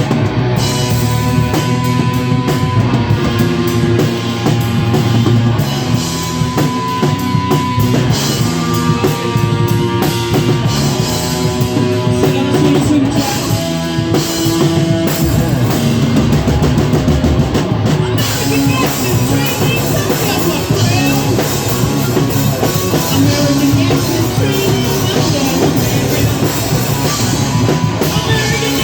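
Live rock band playing loudly, with drum kit, electric guitar and bass, and some singing.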